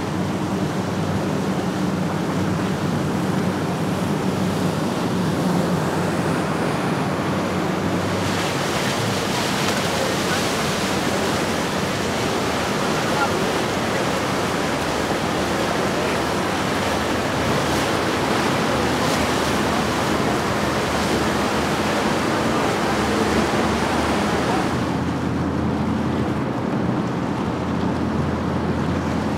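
Boats motoring past, engines running under a steady rush of water and wind on the microphone. First comes a Yamaha 275SD jet boat. About eight seconds in, a louder hiss of wake comes as a Worldcat 280CC-X catamaran on twin outboards passes. Near the end there is a stronger low engine hum with less hiss from an outboard-powered Falcon Offshore 22.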